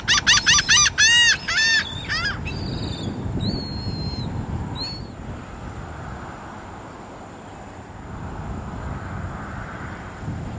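Seabird calls: a quick run of about eight harsh arched notes in the first two seconds, then a few shorter, flatter calls up to about five seconds in. Wind rumbles on the microphone throughout.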